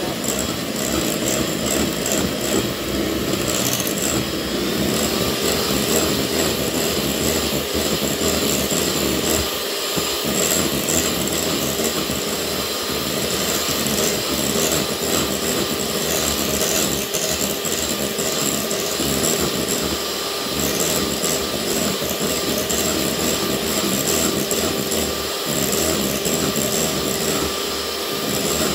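Hand-held electric mixer running steadily, its beaters whipping egg whites into meringue in a ceramic bowl.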